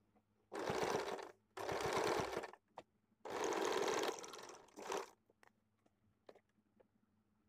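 Electric household sewing machine stitching cotton fabric in four short runs, three of about a second each and a brief last one, stopping between them.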